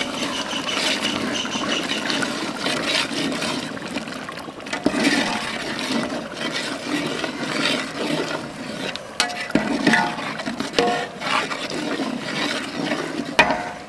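Metal ladle stirring thick, simmering mutton gravy in a large metal pot: a continuous wet churning and slopping, with a few sharp clanks of the ladle against the pot in the second half.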